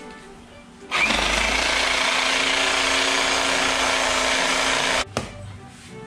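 Handheld electric meat saw running as it saws into a beef carcass. It starts abruptly about a second in, runs steadily for about four seconds, and stops suddenly, followed by a short knock.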